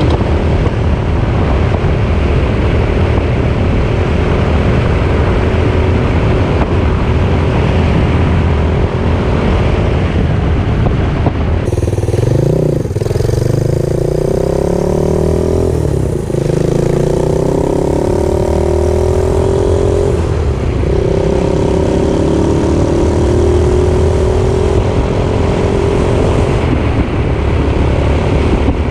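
Small motorcycle engine driving a homemade reverse trike on the road, running steadily at first. Partway through, its pitch climbs as it accelerates, dropping and climbing again about three times as it shifts up through the gears, then it settles at a steady cruise.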